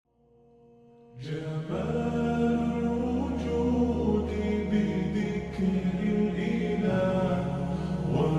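Music with chant-like singing voices, rising out of silence and coming in fully about a second in over a steady bass.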